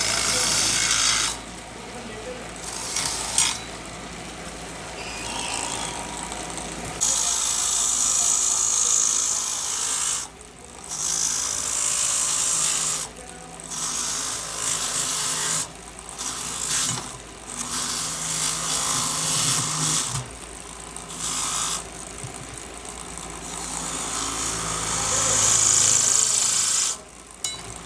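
A handheld power tool grinding or buffing, switched on and off in runs of one to four seconds with short breaks between them, a rough, high-pitched noise.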